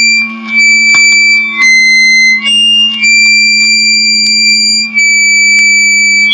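A person humming a steady low note into a microphone, with a loud high-pitched whistling tone over it that jumps to a new pitch about once a second, briefly dipping between steps. The humming is meant to bring out noises the person believes come from an implant in the ear.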